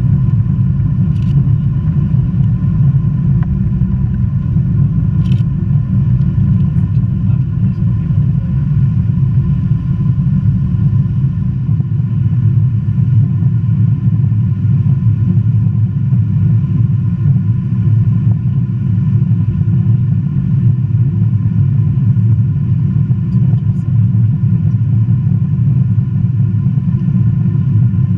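Boeing 777 jet engines at high power heard from inside the passenger cabin: a steady, loud low rumble with a constant whine on top, during the takeoff run or initial climb.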